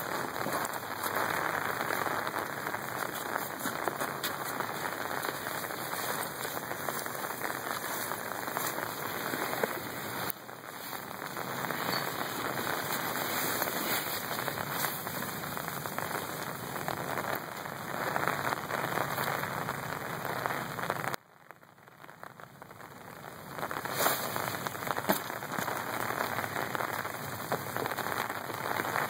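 Steady rain, an even hiss. About two-thirds of the way through it drops away abruptly, then builds back over a few seconds.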